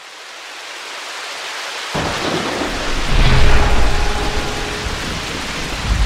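Rain-and-thunder sound effect: a steady rain hiss fades in, then a deep thunder rumble starts suddenly about two seconds in and swells to its loudest a second or so later before rolling on.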